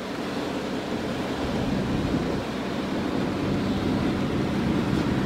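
A car engine idling: a steady low hum at a constant pitch, growing slightly louder over the first couple of seconds.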